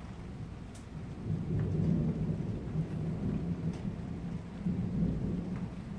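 Thunder rumbling low, swelling about a second in and rolling on in uneven waves, over steady rain.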